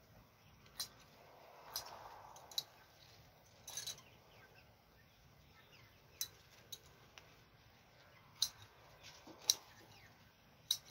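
Scissors snipping through the stems of flowering mustard greens (choy sum) during harvest: about ten short, sharp snips at irregular intervals, with a soft rustle of leaves about two seconds in.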